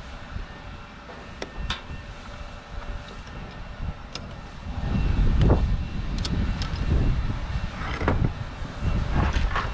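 Small sharp clicks and taps from hand work on an X13 blower motor and its parts, over a low, uneven rumble that gets louder about halfway through.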